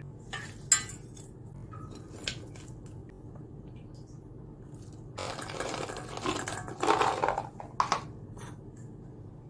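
Food being tipped into a stainless steel mixing bowl: a few sharp clinks of dishes against the bowl, then from about five seconds in a rustling clatter of green peas pouring onto chopped vegetables, over a steady low hum.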